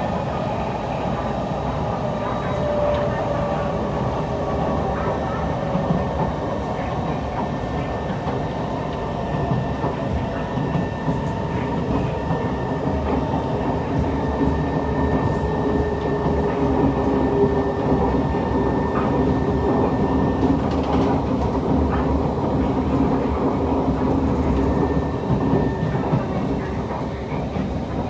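Onboard running noise of a Kawasaki C151 metro train at speed: a steady rumble of wheels on rail, with a few thin, steady tones above it, growing a little louder in the middle and easing near the end.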